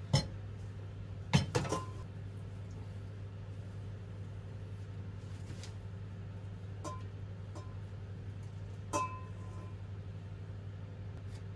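Stainless steel bowls and a mesh sieve clinking and knocking as boiled azuki beans are strained for bean paste. A cluster of knocks comes in the first two seconds, then single clinks about seven and nine seconds in, some with a short metallic ring, all over a steady low hum.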